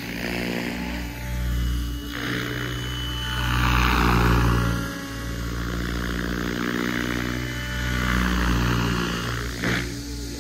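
Goosky RS7 700-size electric RC helicopter in distant flight: rotor whoosh and motor whine that swell and fade as it manoeuvres, loudest about four seconds in.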